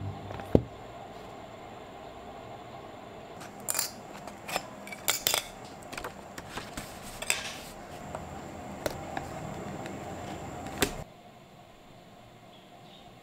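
Hands handling a hardcover sketchbook and a metal bulldog clip: a sharp click about half a second in, then scattered metallic clicks, clinks and rustles for several seconds. Near the end it drops to quiet room tone.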